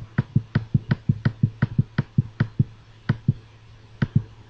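Computer mouse button clicked rapidly, about three clicks a second with a couple of short pauses, each click setting a point of a lasso selection.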